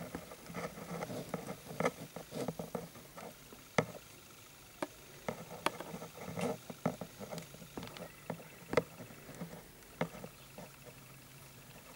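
Irregular clicks, taps and rustling from metal tweezers working inside a plastic terrarium and among loose substrate, with a few sharper single clicks a second or more apart; it quietens near the end.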